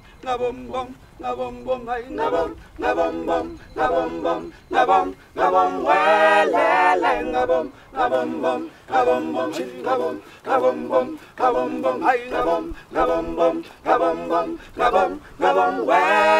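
A group of voices singing a cappella in short, rhythmic phrases that repeat about once a second.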